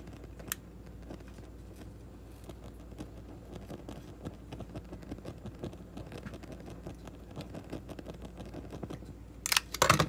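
Scattered light clicks and handling taps on the workbench while heat-shrink tubing is heated, then a short burst of metallic clinking near the end as the stainless steel carabiner swings on the finished bungee cord.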